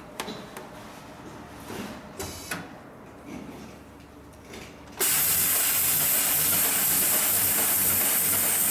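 Light clicks and rustles of material being handled at the sewing machine, then, about five seconds in, a loud, steady hiss of air starts suddenly and keeps going.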